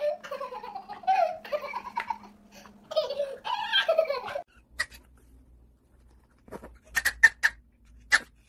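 A toddler laughing hard in repeated giggles for about four seconds. After a short lull, several short, high, sharp yaps come near the end.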